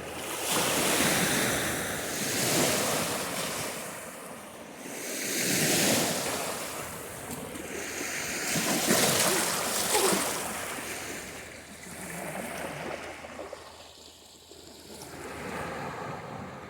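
Small lake waves washing onto a rocky shoreline, swelling and falling away every few seconds, with some wind on the microphone.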